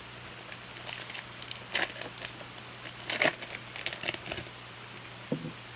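Trading cards and their packaging being handled: irregular crinkling and rustling, loudest in two strokes about two and three seconds in.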